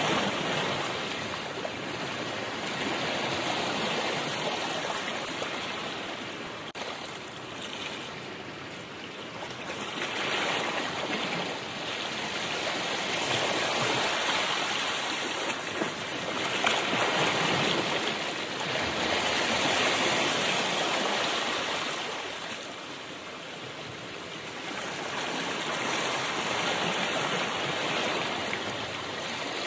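Steady rushing road and tyre noise heard from inside a moving car, swelling and easing several times as the car speeds up, slows and passes traffic.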